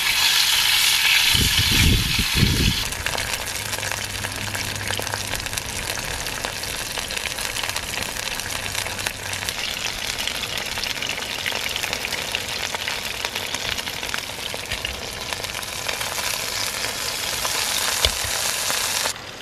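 Wallaby back steak sizzling in olive oil in a frying pan, a steady frying hiss that is loudest in the first few seconds as the steak is turned over with tongs. A few low thumps come about two seconds in, and the sizzle cuts off suddenly just before the end.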